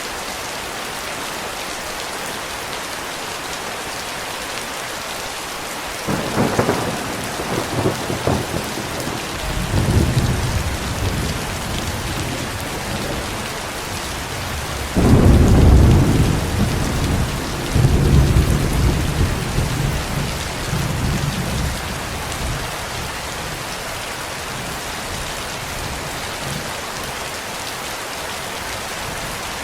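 Steady heavy rain with thunder: a sharp clap about six seconds in rolls into rumbling, then a louder clap near the middle rolls into a long low rumble that dies away a few seconds later.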